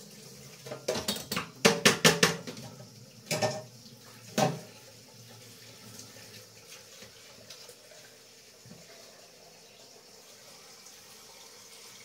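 Kitchen tap running cold water to soak gelatin sheets, a steady low rush. In the first few seconds dishes and cutlery clink and knock several times, the loudest sounds here.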